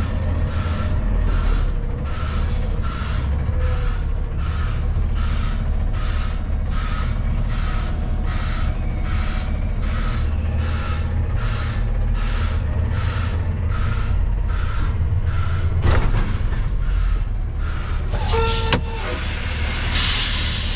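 Truck backup alarm beeping about twice a second over a diesel semi-truck engine running while the rig manoeuvres; the beeping stops about three-quarters of the way in. Near the end comes a loud hiss of released air from the air brakes.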